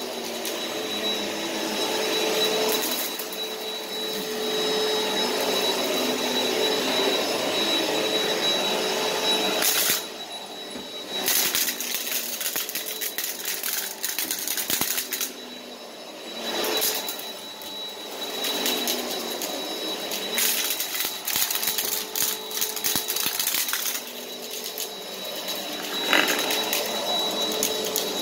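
Upright bagless vacuum cleaner running on carpet: a steady motor whine over the rush of suction, with a dense crunch of small debris crackling up through the brush roll. The sound swells and dips as the cleaner is pushed back and forth.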